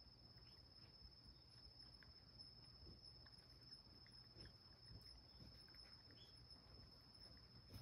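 Near silence with a faint, steady, high-pitched insect trill and a few faint scattered ticks.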